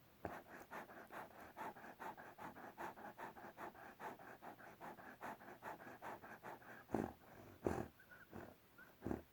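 An animal snoring in fast, even breaths about five a second, then a few louder, slower breaths near the end with two short high whistles between them.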